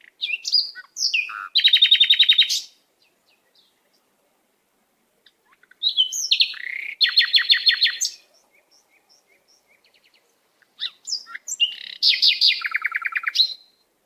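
A small songbird singing three short phrases a few seconds apart. Each phrase opens with a few varied chirps and ends in a fast trill of repeated notes.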